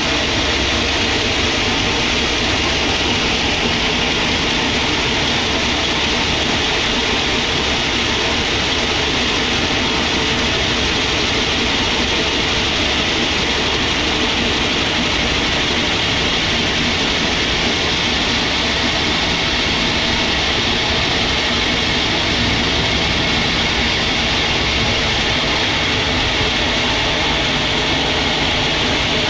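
Sawmill machinery running steadily: a loud, unbroken mechanical noise that holds the same throughout.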